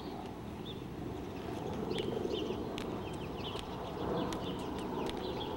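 Marching soldiers' hard shoes clicking on a stone plaza: scattered sharp footfalls that begin about a second and a half in and come more often toward the end.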